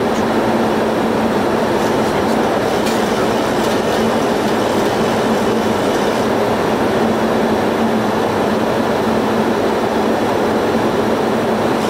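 Boeing 737 flight-deck noise in flight: a steady rush of air with a constant low hum, heard inside the cockpit.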